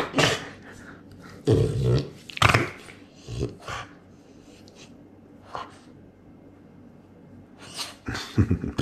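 French bulldog play-growling at a hand teasing its face, in several short bursts, with a quieter pause in the middle.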